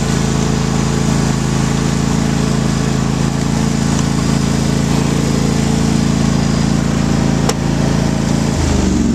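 An engine running steadily at a constant speed, its note changing just before the end.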